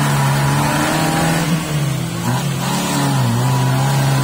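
Suzuki Jimny 4x4's engine held at high, steady revs as it works through deep mud, the revs dipping briefly a few times.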